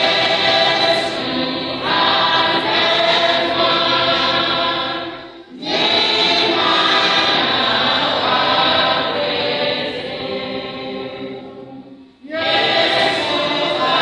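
Children's choir singing together in long phrases, with brief breaks about five and a half and twelve seconds in.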